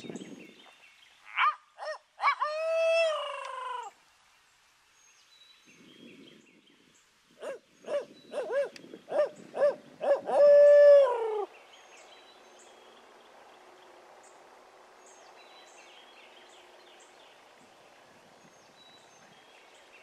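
Barred owl-style hooting: two phrases of the 'who-cooks-for-you, who-cooks-for-you-all' pattern, each a quick run of short hoots ending in a long, falling note. Faint high chirps of small birds follow in the dawn quiet.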